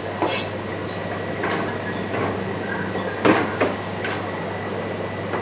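A few light knocks and scrapes as a bowl is handled on a steel kitchen counter, over a steady low hum. The loudest knock comes about three seconds in.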